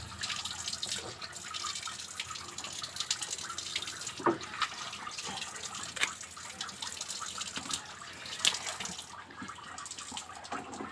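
Water running and splashing, with scattered sharp clicks and scrapes as a large gourami is cut open with scissors and cleaned on a wet floor.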